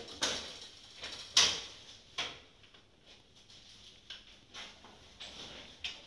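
Plastic ceiling-cassette air-conditioner panel and grille being handled overhead: a handful of scattered knocks and clatters, the loudest about a second and a half in.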